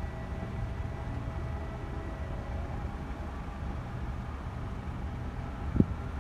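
Distant jet aircraft engines whining over a steady low rumble, the whine edging slightly up in pitch; a single thump near the end.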